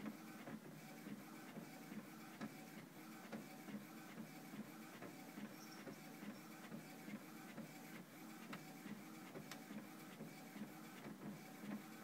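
Printer printing, its mechanism running in a steady repeating rhythm of about two strokes a second.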